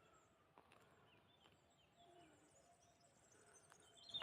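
Near silence outdoors, with faint, distant birds chirping now and then and a few soft ticks.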